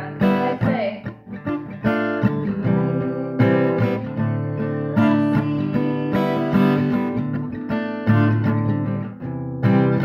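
Acoustic guitar strummed, ringing chords struck roughly once a second, with a short gap about nine seconds in.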